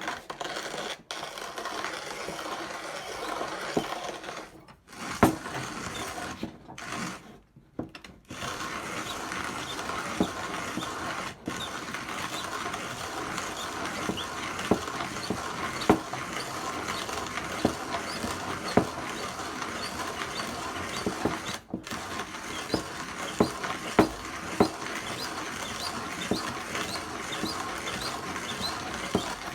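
KyM 369 conical burr lap grinder being hand-cranked on its finest setting, the burrs crunching through coffee beans with a continuous grinding noise and regular clicks as the handle turns. It pauses briefly a few times early on and once about two-thirds through.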